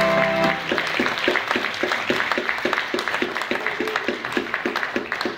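The last held chord of the music cuts off about half a second in. A congregation then applauds, and one nearby pair of hands claps steadily at about four claps a second.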